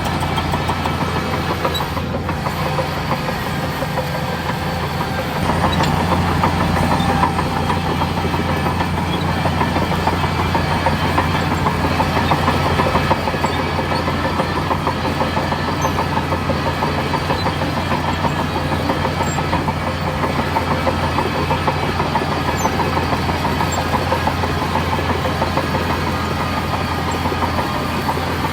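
Heavy diesel engine of earthmoving machinery running steadily, getting somewhat louder for several seconds about five seconds in before settling back.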